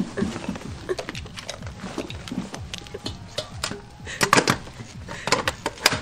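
A run of sharp metallic clicks and clatter from handling hard equipment, denser and louder in two clusters in the second half, over a low music score.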